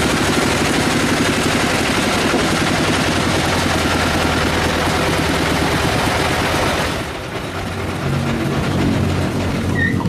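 Band sawmill blade cutting through a log, a loud dense rapidly pulsing noise of the saw and its drive. About seven seconds in the cutting noise drops away to a quieter, lower running sound.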